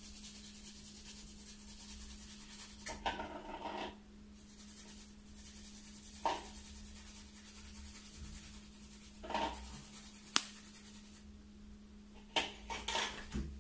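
Kitchen handling sounds at a plastic mixing bowl: a few separate scrapes and clinks of a utensil, with a longer scraping stretch about three seconds in and a quick cluster near the end, over a steady low hum.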